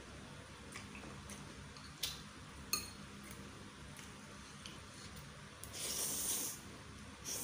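Mukbang eating sounds from a bowl of chicken noodles: a few sharp clicks while chewing, then a loud slurp of noodles lasting about a second, about six seconds in, and a shorter slurp at the end.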